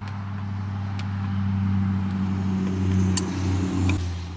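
Steady low engine-like hum starting abruptly, with a few light clicks over it.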